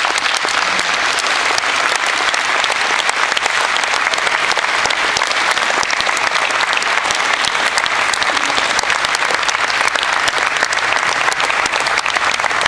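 A large indoor crowd applauding steadily: many hands clapping at once after the exhibition bout ends.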